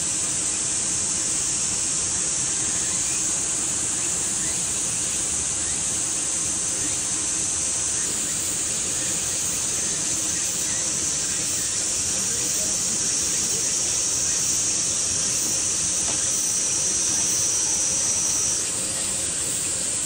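Summer cicada chorus: a steady, high-pitched shrill hiss. A louder single cicada joins in about 8 seconds in and cuts off suddenly shortly before the end.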